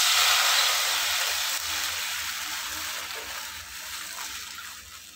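Thin wheat-flour batter poured into hot ghee in a nonstick pan, hissing and sizzling loudly at first, then dying down steadily over a few seconds.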